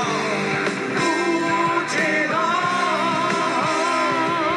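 Live rock band playing: drums, bass, electric guitars and keyboard under a sung vocal line that wavers and holds its notes.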